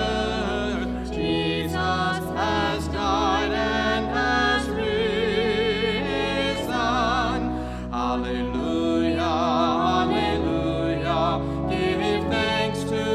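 Sacred music: a singing voice with wide vibrato carries a melody over long, held low accompaniment notes.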